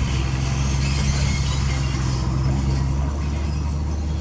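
Crawler bulldozer's diesel engine running steadily with a low, even drone while the machine reverses.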